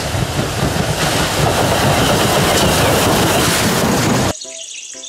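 Steam locomotive hauling passenger coaches past close by, the train rumbling over the rails. It cuts off abruptly about four seconds in.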